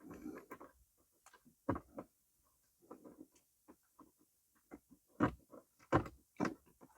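Scattered clicks and knocks of hand work on plastic dashboard trim while a screw is driven in underneath the dash, a few knocks sharper than the rest.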